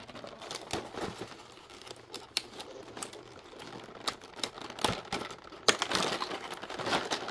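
Stiff clear plastic blister tray being handled, crinkling and clicking, with the plastic pieces ticking against each other. The crinkling grows denser and louder near the end.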